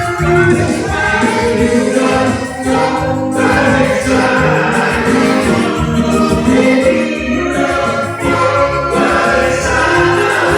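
Live pop music: a band with electric keyboard plays while singers sing.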